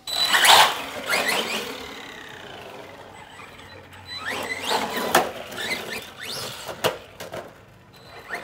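Arrma Granite 3S RC monster truck driven in short throttle bursts: its brushless motor whines up and down in pitch, loudest just after the start and again about four to five seconds in. A few sharp clicks come in the second half.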